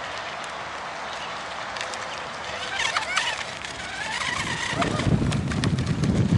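A steady hiss with a brief wavering, voice-like sound near the middle, then wind buffeting the microphone from about four and a half seconds in.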